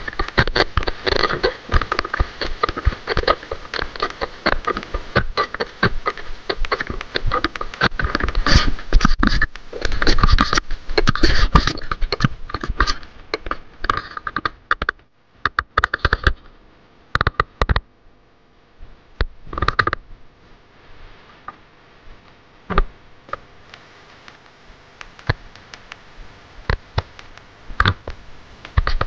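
Close-up handling noise from jigging: rapid scratching and clicking of gloved hands, line and fishing reel right against the microphone, dense for about the first fifteen seconds and then thinning to scattered clicks while the reel is cranked.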